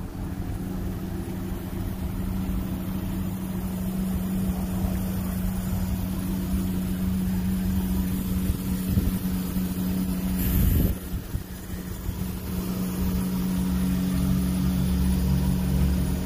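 Vehicle engine idling steadily, a constant low hum that grows louder near the end, with a brief burst of noise about ten seconds in.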